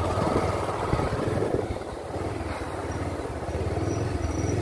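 Motorcycle engine running steadily while riding, its low engine note under an even hiss of road and wind noise.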